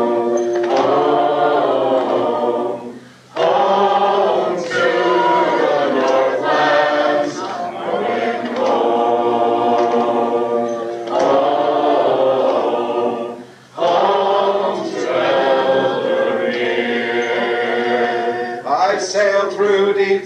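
A choir singing a cappella in harmony, long held phrases broken by two short pauses, about three seconds in and again about thirteen and a half seconds in.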